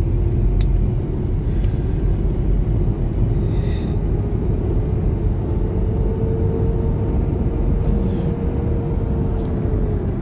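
Road noise inside a moving car's cabin: a steady low rumble, with a faint whine that slowly rises in pitch and fades near the end. There is a single click about half a second in.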